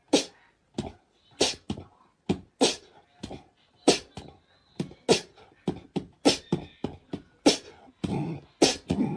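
A percussive backing track of sharp clicks and knocks in a loose rhythm, about two or three hits a second, each dying away quickly.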